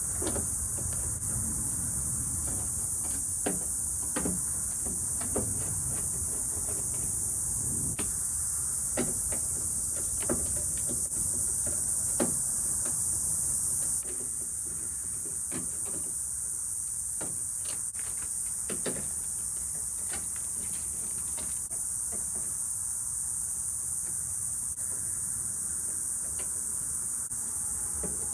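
Scattered clicks and knocks of hand tools on a pickup truck's door frame as the 7 mm window-regulator fasteners are worked on, over a steady high hiss.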